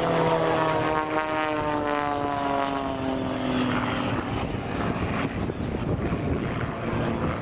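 Piston-engine aerobatic propeller aircraft flying past close by, its engine note dropping steadily in pitch as it passes. After about four seconds the note gives way to a rougher, noisier drone.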